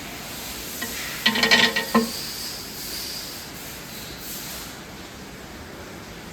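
A Washino LR-55A engine lathe's metal parts clanking: a quick cluster of metallic knocks with ringing, about a second and a half in, over a steady hiss.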